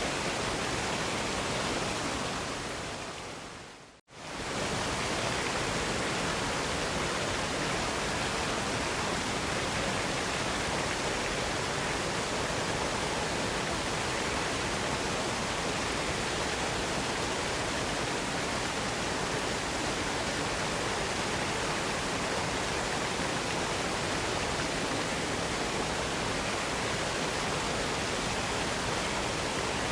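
Steady rushing of a waterfall's falling water. About four seconds in it fades away to silence and swells straight back to the same level.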